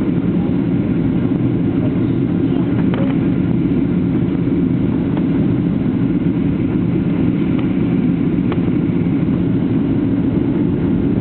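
Steady, loud drone of an airliner's engines and rushing air heard inside the passenger cabin during the descent to land.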